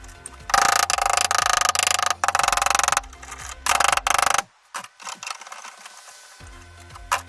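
A loud, rapid mechanical buzz in three bursts, the first about half a second in and the longest, then a few faint ticks and a sharp click near the end.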